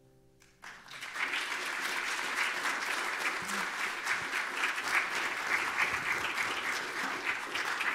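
A church congregation applauding, starting under a second in and holding steady, just after the last acoustic guitar chord of a song dies away.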